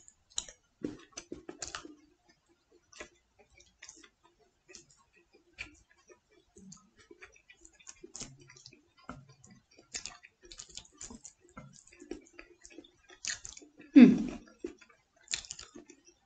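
Eating at a table: scattered light clicks of chopsticks and a spoon against a plate, with quiet chewing between them, and one louder sound about fourteen seconds in.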